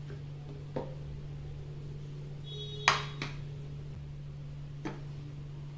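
A few knocks and clicks of a plastic personal-blender jar and its blade base being handled and set down on a glass tabletop, the loudest about three seconds in with a short ring, over a steady low hum.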